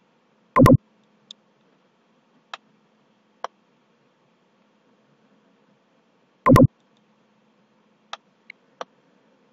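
Computer mouse button clicks: two loud clicks about six seconds apart, with several light ticks between them and three quick ones near the end, over a faint steady hum.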